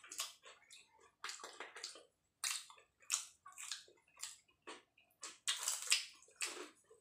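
Samosas being bitten, torn and chewed by two people: a string of short, irregular crunchy bursts.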